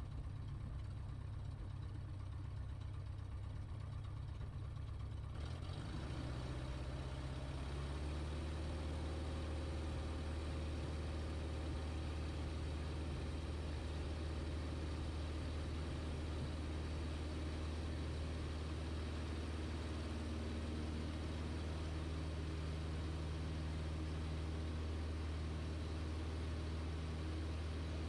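Single-engine light aircraft's piston engine and propeller running steadily while taxiing. The engine note changes about six seconds in and then holds steady to the end.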